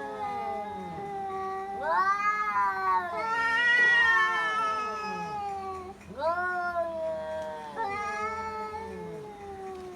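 Two cats yowling at each other in a territorial standoff: long, wavering caterwauls that rise and fall in pitch and overlap at times, the loudest swell about four seconds in.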